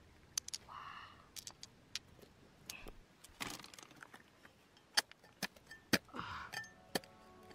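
Small hard objects clicking and knocking at irregular moments, with two short rattling scrapes, one about a second in and one just after six seconds.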